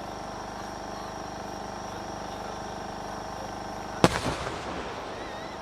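Firework shell bursting with one sharp bang about four seconds in, followed by a short crackle and rumbling echo that die away. Before it, a steady background hum with thin high tones runs underneath.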